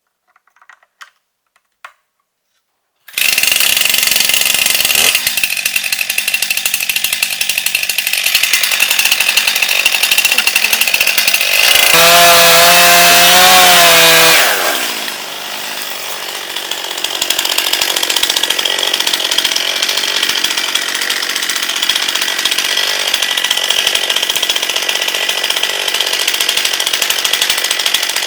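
Stihl MS261 C two-stroke chainsaw running at full throttle, cutting a tree. It cuts in suddenly a few seconds in; near the middle its note rises into a clear high whine for a couple of seconds, then drops lower and keeps running.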